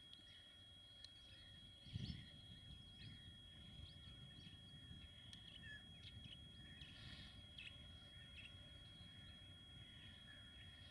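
Birds chirping over the faint low rumble of a distant ČD Cargo class 742 diesel locomotive approaching, with a brief low thump about two seconds in.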